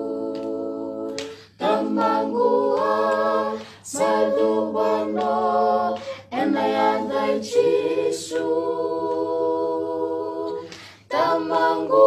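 Small family choir of children and adults singing a Fijian-language song a cappella in harmony, with no instruments. A held chord ends about a second in, then several sung phrases follow with short breaths between them.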